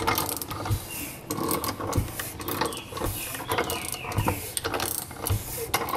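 Ratchet wrench clicking in irregular runs as a Kawasaki four-stroke engine's crankshaft is turned over slowly by hand at the pulley bolt, to check the valve timing.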